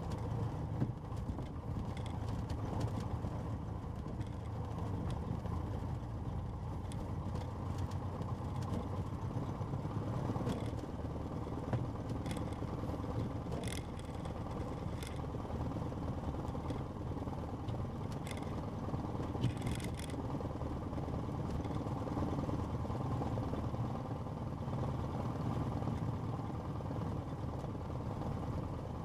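Cessna 150's four-cylinder Continental O-200 engine and propeller running steadily at a constant power setting, with a few faint short clicks over the drone.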